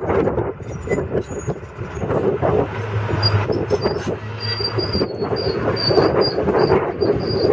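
John Deere 690E LC excavator running, its six-cylinder turbo diesel and steel-tracked machinery giving a continuous clattering rumble. A faint, high squeal comes and goes in the second half.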